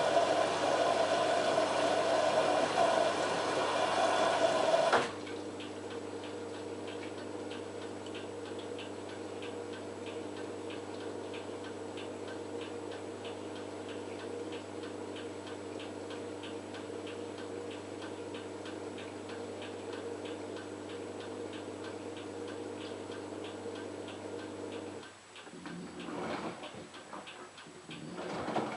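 LG F1443 washing machine running: a loud steady drone cuts off about five seconds in, leaving a quieter steady hum with a regular light ticking, about two ticks a second. Near the end the hum stops and a few irregular knocks follow.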